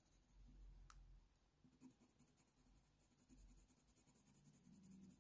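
Faint scratching of a Faber-Castell Polychromos coloured pencil on hot press watercolour paper, in quick, short, repeated strokes as fur is shaded in.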